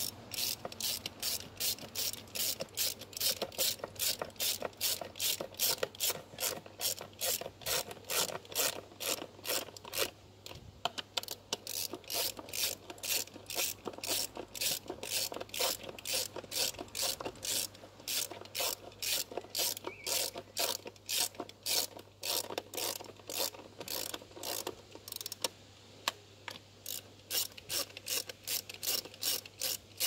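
Hand ratchet wrench clicking in quick, even back-and-forth strokes as a bolt on a VW PD TDI diesel engine is turned, about three clicks a second, pausing briefly twice.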